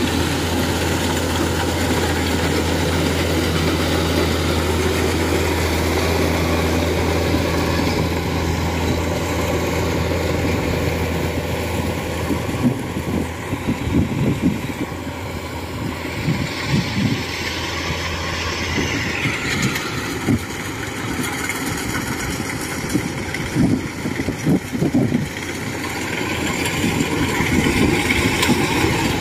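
Kubota DC-105X rice combine harvester running as it cuts and threshes rice: a steady engine drone with threshing noise. About midway the low hum fades as the machine moves off, with scattered thumps, and the sound grows louder again near the end as the machine comes close.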